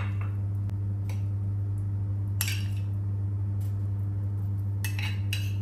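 Metal spoon mixing boiled potato and yogurt in a glass container and scooping it onto a plate, with a few sharp clinks about two and a half seconds in, once more a second later, and twice near the end. A steady low hum runs underneath throughout.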